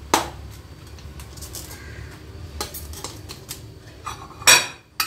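A metal serving spoon scraping and clinking against an aluminium cooking pot while scooping out cooked biryani rice. There is a sharp knock just after the start, light scrapes and ticks after it, and a louder clatter near the end.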